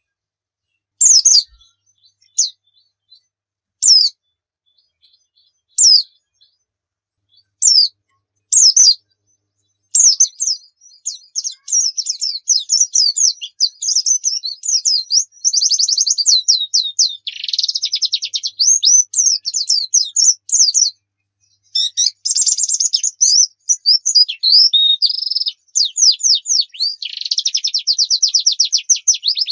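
White-eye (pleci) calling: single short, high call notes spaced a second or two apart, then from about ten seconds in a fast, continuous twittering song with rapid trills, pausing briefly near the twenty-second mark.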